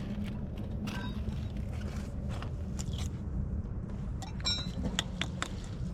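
Small metal objects clicking and clinking against each other, a few strikes ringing briefly. This is scrap and caltrops being handled off a magnet-fishing magnet. A steady low hum runs underneath.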